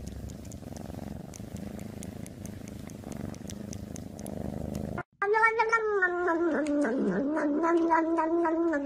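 A cat purring close to the microphone, a low steady rumble. After a cut about five seconds in, a long wavering high-pitched tone with harmonics takes over; it dips in pitch briefly and then holds.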